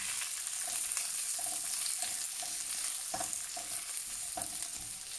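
Onion, banana chilli and curry leaves sautéing in hot oil in a non-stick pan: a steady sizzle, with the utensil scraping through the pieces about two or three strokes a second as they are stirred.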